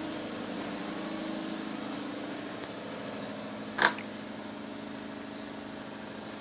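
Steady mechanical hum, with one short, sharp click a little under four seconds in.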